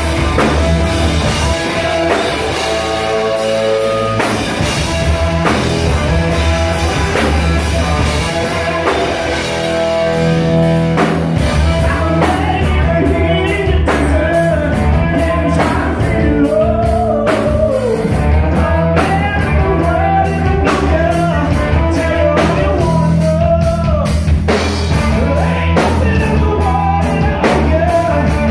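Live rock band playing: distorted electric guitar, electric bass and drum kit. After an instrumental opening, a male singer comes in about halfway through.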